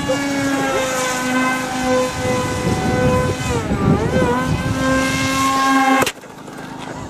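Radio-controlled aircraft's motor running at a steady high pitch. The pitch dips and wobbles briefly about four seconds in, and the sound cuts off suddenly about six seconds in.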